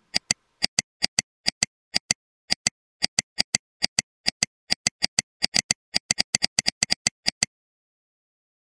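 Computer mouse clicking over and over, each click a quick press-and-release pair, about two pairs a second and a little faster towards the end, then stopping about a second before the end.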